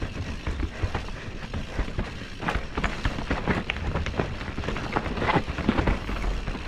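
Yeti SB6 full-suspension mountain bike descending a rough dirt trail: tyres rolling over roots and stones, with a constant stream of quick knocks and rattles from the bike over a low rumble.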